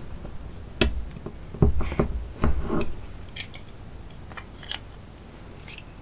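A folding multitool being handled: a few sharp metal clicks and knocks in the first three seconds as its saw blade and handles are worked, then a handful of fainter ticks.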